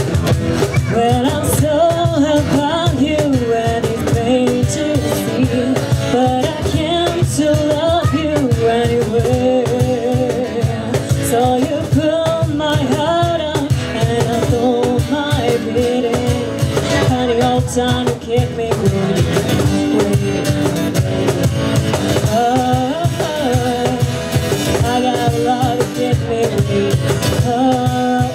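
Live acoustic band playing a song: a woman's voice singing the melody through a PA, over a strummed acoustic guitar and a cajón keeping a steady beat.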